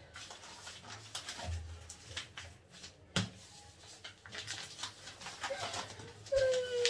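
Rustling and handling as paper packets of maize flour are pulled out of a non-woven shopping bag. A sharp knock about three seconds in, and a brief falling tone near the end.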